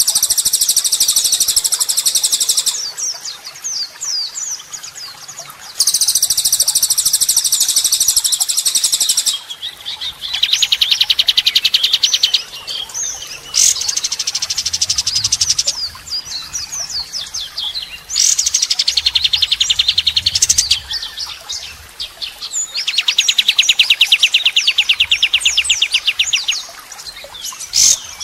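White-rumped shama (murai batu) song made of borrowed small-bird phrases: about six long runs of very rapid, harsh, rattling trills of a few seconds each, with quick high chirps and whistled notes between them.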